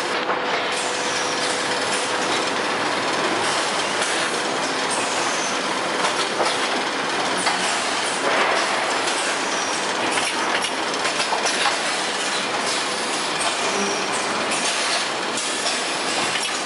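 Automatic carton packaging line running: a steady mechanical clatter and rattle from conveyors and machinery, with many small clicks throughout.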